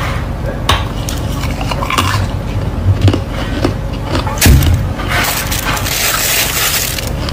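White frosty ice being bitten, snapped apart and crunched between the teeth: a run of sharp cracks and snaps, the loudest about four and a half seconds in, then a couple of seconds of dense crunchy chewing.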